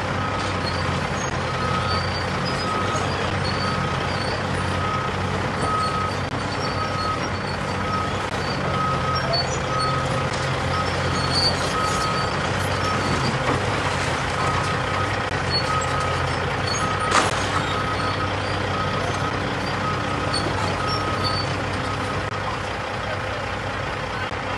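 Diesel engine of heavy demolition machinery running steadily while its reversing alarm beeps about once a second, the beeping stopping near the end. A single sharp knock cuts through about two-thirds of the way in.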